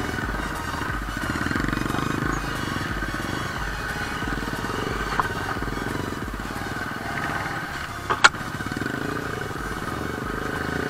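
Cruiser motorcycle engine running steadily at low speed while the bike is ridden along a rough dirt trail. A sharp knock comes about eight seconds in.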